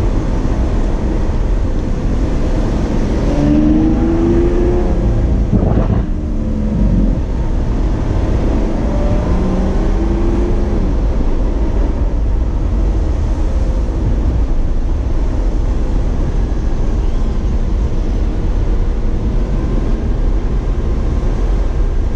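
Lamborghini Aventador S's naturally aspirated V12 engine driving: it accelerates with a rising engine note about three to five seconds in, breaks off sharply near six seconds, pulls up again around ten seconds, then runs steadily under heavy low road and wind rumble.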